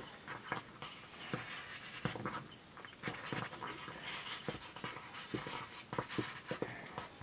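A long wooden paddle stirring thick food in a blackened metal pot over a wood fire: irregular soft knocks and scrapes of wood on metal.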